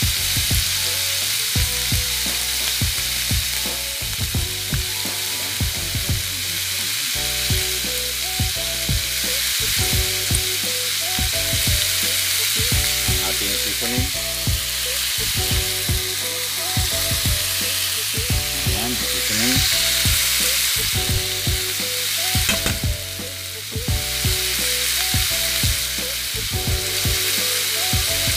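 Sliced pork frying in a hot wok, with a steady sizzle throughout.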